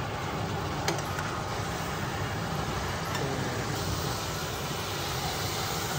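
Crayfish and garlic sauce sizzling steadily in a wok on an induction hob, with one sharp tap of the spatula about a second in.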